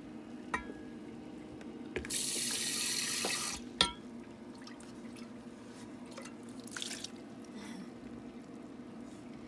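Hot water pouring out of a stainless steel pot through a plastic colander into a steel sink, draining the first boiling water off mushrooms: a splashing rush lasting about a second and a half, then a single sharp knock, the loudest sound. A steady low hum runs underneath, with a few small clicks and a second, shorter splash later on.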